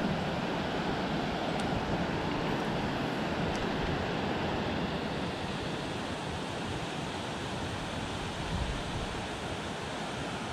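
Steady rushing noise of running river water, with wind buffeting the microphone.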